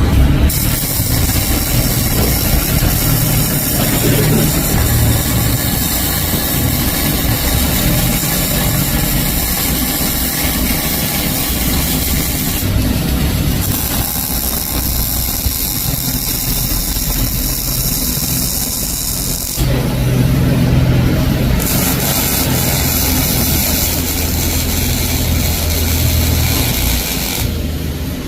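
Robotic MIG welding arc, a steady crackling hiss over a low machine hum. The hiss breaks off for about two seconds around twenty seconds in and stops again near the end, while the hum carries on.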